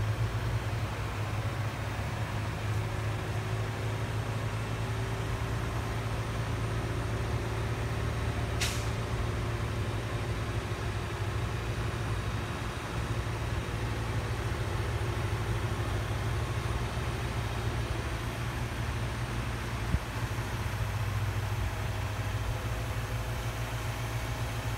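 A motor vehicle's engine running with a steady low drone. A brief, sharp high hiss comes about nine seconds in.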